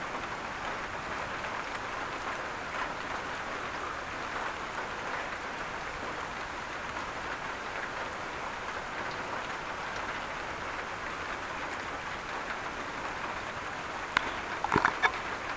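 Steady rain falling, an even hiss without thunder. A few sharp taps or clicks close by near the end.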